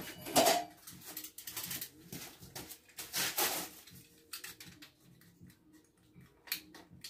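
Irregular sharp clicks and snips of a hand cutter trimming the fastenings of a licence plate, with the plate knocking and rattling as it is handled.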